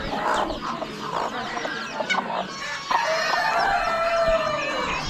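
Many caged chickens clucking. About three seconds in, a rooster crows: one long call that falls in pitch at the end.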